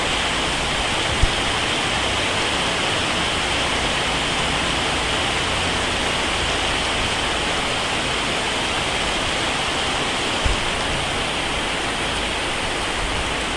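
Heavy rain pouring down in a steady, dense hiss. Two brief low thumps come through, about a second in and again about ten seconds in.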